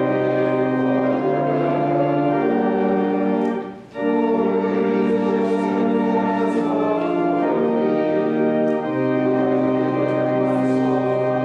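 Organ playing slow sustained chords, the notes changing every second or so, with a brief pause between phrases about four seconds in.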